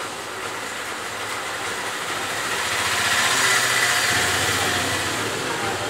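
A motor vehicle passing: engine and road noise swell to a peak about three to four seconds in, with a low engine hum near the peak, then ease off.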